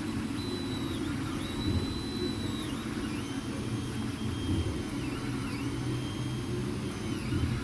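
MINGDA MD-6L FDM 3D printer at work: its stepper motors whine at high pitches that hold for a second or so, then dip and rise again as the moves speed up and slow down, over a steady low hum from the machine.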